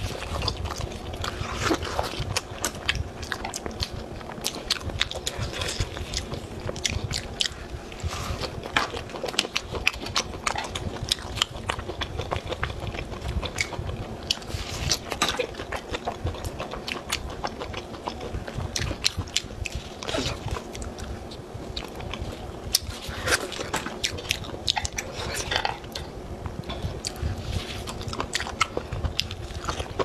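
Close-miked chewing and biting of spicy grilled meat skewers: irregular crunches and mouth clicks throughout.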